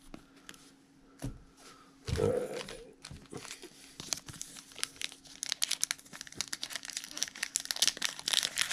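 Foil wrapper of a Panini Flux basketball card pack crinkling as it is handled and torn open at the crimped top. After a couple of soft knocks, it becomes a dense crackle that grows busier toward the end.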